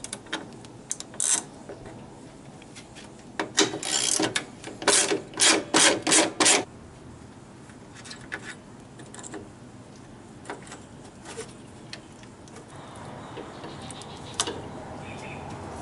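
Socket ratchet wrench clicking in short runs as it backs out the 10mm bolts of the radiator's upper mount bracket. The busiest strokes come from about three to seven seconds in, followed by a few scattered light clicks.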